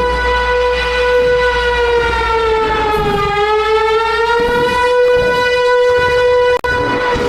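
Civil defense siren sounding a long, steady tone that sags slightly in pitch partway through and rises back, with a very brief break near the end.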